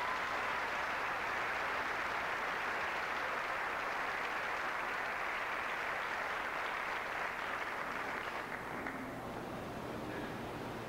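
Audience clapping, a steady even applause that dies away about eight or nine seconds in.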